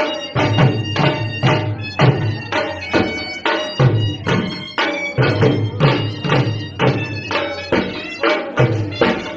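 Dhol drum beaten with a stick in a steady dance rhythm, about two strong strokes a second, under a reedy wind instrument playing a melody: traditional wedding dance music.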